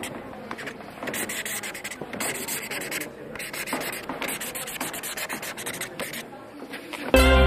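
Irregular scratching and rubbing noise with many small clicks, then music with a sustained chord starts abruptly near the end.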